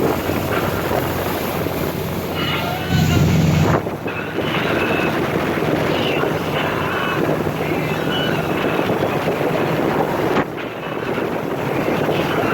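Boat under way: steady engine and water noise with wind buffeting the microphone and faint voices. It swells louder for about a second, around three seconds in.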